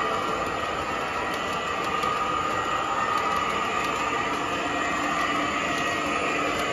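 O-gauge model train of the MTH RailKing Santa Fe SD45 rolling along the layout track with its tank cars and caboose: a steady rolling rumble and hum.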